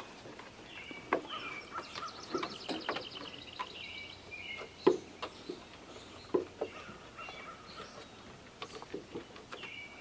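Several songbirds singing and calling, short chirps and a rapid trill of quickly repeated notes, over a faint outdoor background. A few sharp clicks or taps cut in, the loudest about five seconds in.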